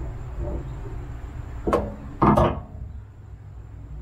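Two knocks from the truck's exhaust hanger and pipe being handled: a short sharp one a little under halfway through, then a louder, slightly longer clunk about half a second later, over a steady low hum.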